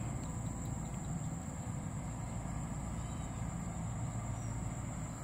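Steady outdoor ambience: a continuous low rumble with a thin, high-pitched insect drone held steady over it.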